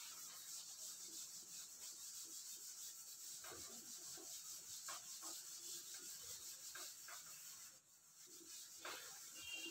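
Chalkboard eraser wiped back and forth across a chalkboard, making faint rubbing strokes that pause briefly near the end.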